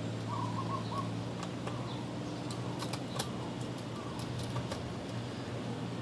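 Scattered light clicks and ticks of a screwdriver and small screws being worked out of a laptop screen assembly, over a steady low hum.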